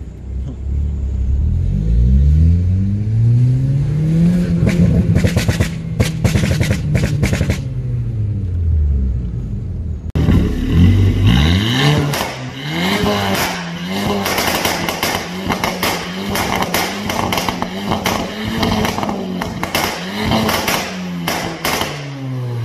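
Remapped Mk5 Golf GTI's turbocharged four-cylinder engine. First it is heard while driving, climbing in revs, holding, then easing off. After about ten seconds it is blipped repeatedly at the twin tailpipes, with rapid crackling pops and bangs from the exhaust on each lift-off.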